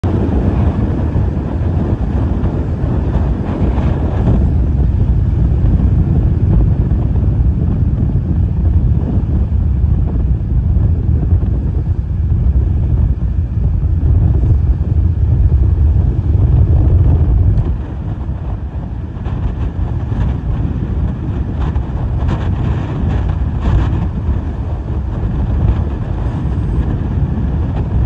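Strong, gusty tropical-storm-force wind buffeting the microphone with a loud, deep rumble. It eases a little about two-thirds of the way through, then comes back in shorter gusts.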